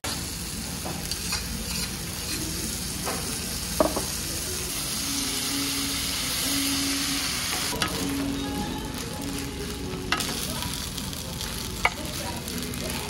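Fried rice sizzling on a hot tabletop griddle as spatulas stir and scrape it across the plate, with a few sharp taps of a spatula on the metal.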